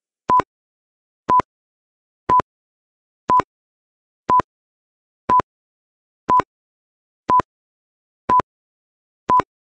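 Countdown timer beeping: ten short electronic beeps of one steady pitch, one each second, marking off a ten-second countdown.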